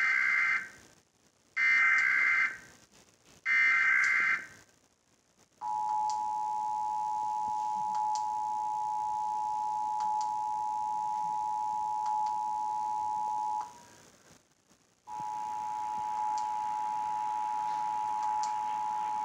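Emergency Alert System test signal: three short warbling SAME header data bursts about a second apart, then the two-tone EAS attention signal held for about eight seconds. The attention tone breaks off and starts again about a second and a half later.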